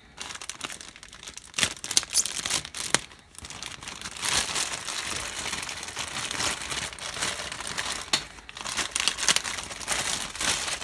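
Plastic bag crinkling and rustling in irregular bursts as it is handled, the bag holding the kit's plastic parts.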